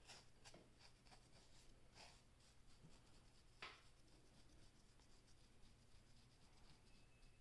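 Faint scratching of a fine-tooth comb raked over a short-haired scalp to lift dandruff: a run of short separate strokes, the sharpest about three and a half seconds in.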